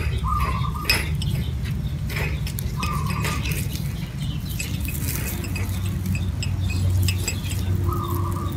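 Light clinks and taps of small ceramic bowls on a metal wire grill rack as a green stalk brush dabs fat into them, scattered irregularly over a steady low rumble. Three short high notes sound, near the start, about three seconds in, and near the end.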